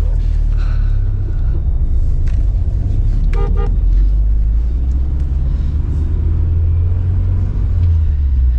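UAZ Patriot SUV driving, a steady low engine and road rumble, with a short double beep about three and a half seconds in.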